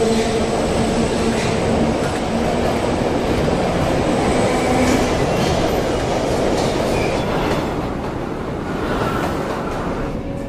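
A train running on rails: a loud, steady rumble with held tones in the first half, easing slightly in the last few seconds.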